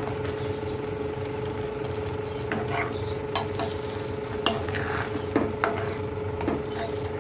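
A spoon stirring and scraping through a sizzling beef masala in a pan as ground roasted coconut paste is mixed in, with a few sharp clinks of the spoon against the pan. A steady low hum runs underneath.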